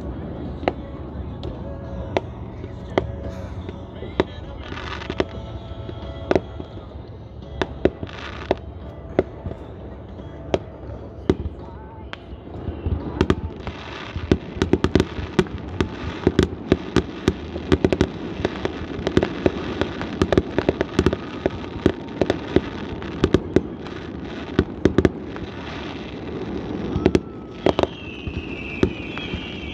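A homeowner's aerial fireworks display going off across a lake: a string of sharp bangs that thickens, about halfway through, into a dense barrage of rapid reports and crackle. Near the end a whistle falls in pitch.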